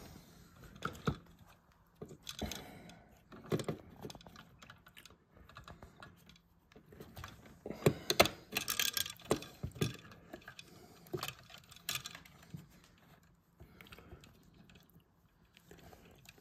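Irregular clicks, taps and rattles of hands handling light switches, their wires and yellow plastic twist-on wire nuts, with a dense cluster of clicks about eight to nine seconds in.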